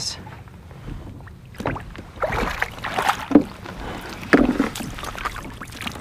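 Irregular knocks, scrapes and rustling of gear being handled aboard a plastic sit-on-top fishing kayak as a fish measuring board is brought out and a redfish is lifted on a lip grip. The sharpest knocks come a little after three seconds and again about four and a half seconds in.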